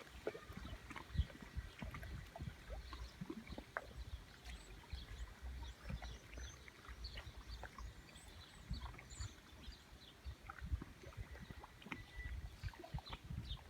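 Estuary shore ambience: low uneven rumbling of wind and lapping water, with many short, scattered bird chirps over it.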